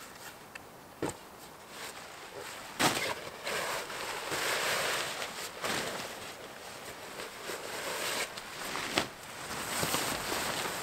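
Nylon tent fabric rustling and crinkling as a Naturehike tent is pulled from its stuff sack and its rainfly is thrown over it. A few sharp clicks and knocks sound among the rustling, the loudest about three seconds in.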